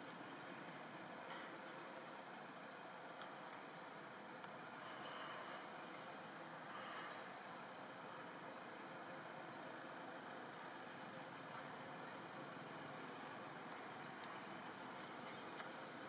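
Steady outdoor background hiss with a short, high, rising chirp repeating about once a second at a somewhat uneven pace.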